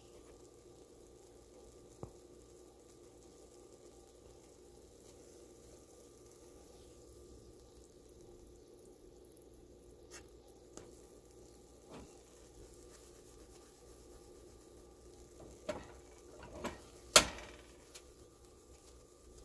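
Peeps marshmallows frying faintly in a nonstick skillet, with a few light clicks of a spatula against the pan. Near the end the pan is knocked about on the electric coil burner: several sharp clacks, the loudest about 17 seconds in.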